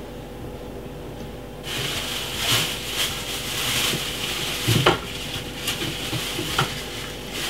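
Kitchen handling sounds: a rustling noise starts about two seconds in, with a few light knocks and clinks of kitchenware.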